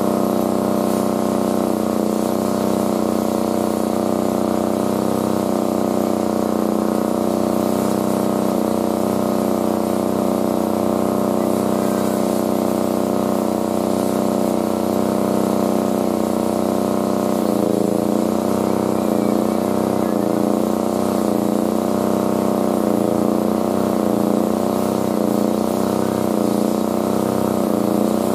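A small engine running steadily, its pitch wavering slightly, more so in the second half.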